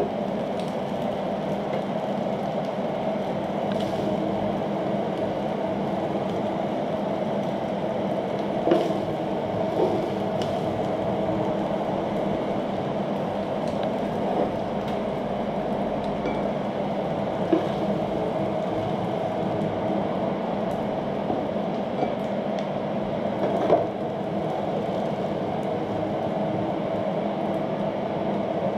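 A steady background hum, with a few short clinks and scrapes as metal tongs and a wooden spatula work shrimp and spaghetti off an electric griddle onto ceramic plates. The clearest clinks come about nine seconds in, near eighteen seconds and near twenty-four seconds.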